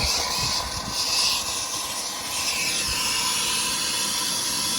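Handheld soldering torch burning with a steady hissing flame, heating a copper pipe fitting for sweat-soldering.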